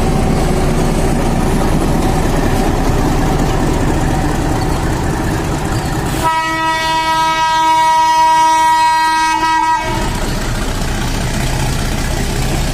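Metre-gauge YDM-4 diesel locomotive running under load as the passenger train pulls out of the station. About six seconds in, its horn sounds one steady blast lasting about three and a half seconds.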